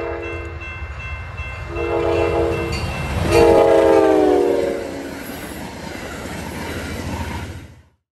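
Diesel locomotive air horn sounding three blasts over the low rumble of a moving train. The last and loudest blast drops in pitch as the train passes.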